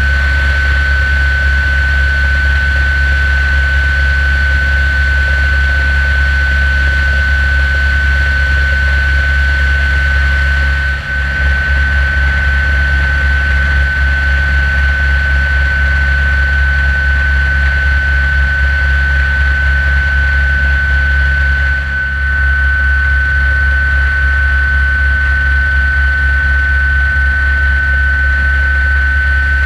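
Turbine helicopter in flight, heard close up from outside the fuselage: a loud, deep, steady rotor drone under a steady high turbine whine. The sound briefly dips twice, about eleven and twenty-two seconds in.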